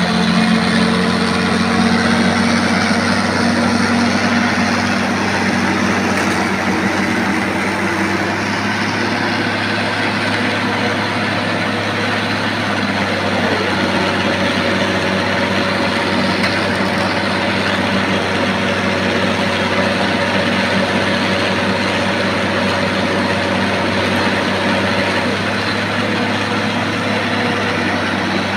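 Bulldozer's diesel engine running steadily, its note shifting slightly about halfway through.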